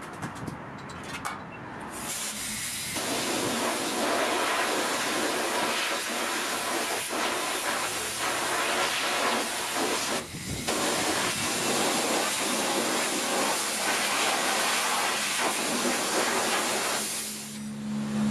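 Water spraying hard in a steady hiss that starts about two seconds in, breaks off briefly a little past halfway, and dies away near the end: a wheel being washed with a strong water jet.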